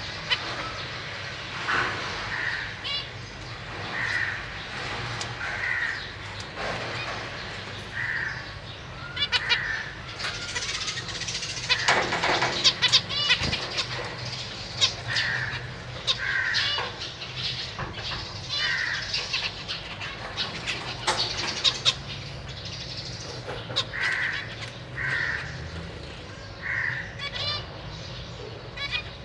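Zebra finches calling: short nasal call notes repeated about every second or two, with a run of quicker, higher calls in the middle.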